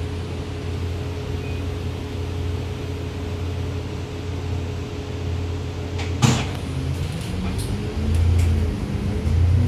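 Double-decker bus engine idling, heard from inside the cabin as a steady low hum. About six seconds in comes a single sharp clack, then the engine note rises and grows louder as the bus pulls away.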